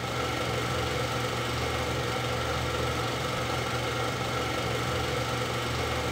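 Avro Lancaster's Rolls-Royce Merlin V12 engines running steadily at idle.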